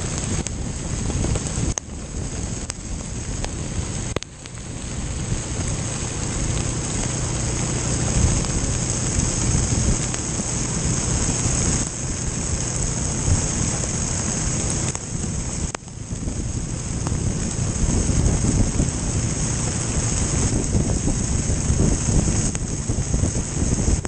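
Heavy rain and wind rushing over the microphone of a motorcycle riding through a downpour, with the engine's steady hum underneath. The sound briefly drops out three times.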